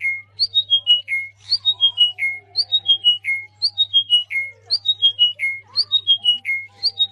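A bird call made of a short falling run of about five clear notes, repeated almost exactly once a second, with fainter bird calls beneath it and a steady low hum.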